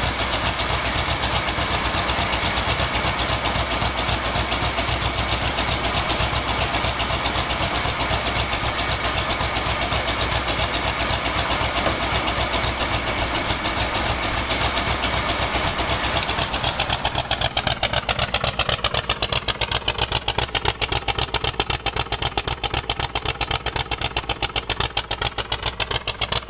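1979 Ford F250's 351M V8, running on a newly fitted Motorcraft 2150 two-barrel carburetor, idling steadily while it warms up; the engine is running rich. About 17 seconds in, the sound changes to an even, rapid pulsing of exhaust at the tailpipes.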